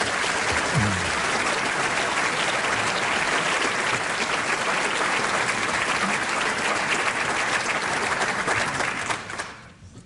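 Audience applauding: a dense, steady clapping that dies away near the end.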